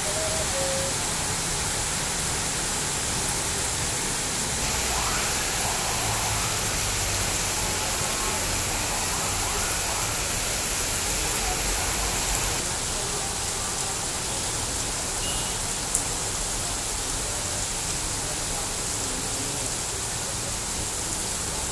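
Heavy rain falling, a steady hiss, with one sharp click about three-quarters of the way through.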